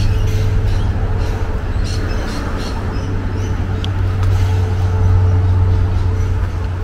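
Steady low engine hum of road traffic, with a continuous street-noise background.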